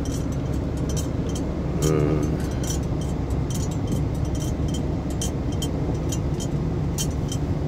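Steady rumble of a car driving, heard from inside the cabin, with many small sharp ticks scattered irregularly throughout: windblown sand grains pelting the windshield in a sandstorm.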